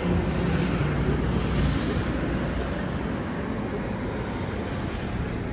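Steady vehicle noise: a continuous low rumble, with a hum that fades out about two seconds in.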